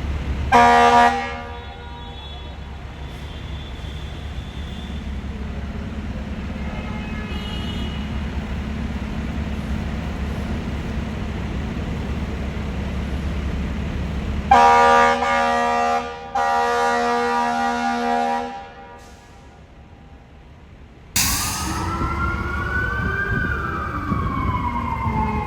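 FDNY fire apparatus air horn giving a short blast, then a longer blast of several seconds with a brief break, over the low rumble of a truck engine. Near the end a siren starts wailing, rising and falling.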